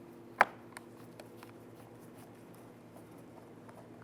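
One sharp click about half a second in, then scattered light clicks and ticks as a Torx screwdriver backs the T20 screws out of the plastic interior door handle.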